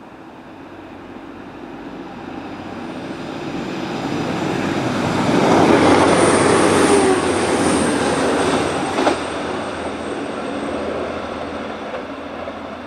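TransPennine Express diesel train running through the station. It grows louder as it approaches, is loudest as it passes with a falling tone, then fades, with a single sharp clack about nine seconds in.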